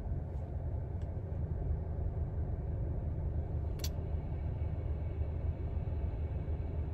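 Steady low rumble inside a parked car's cabin, with one faint click about four seconds in.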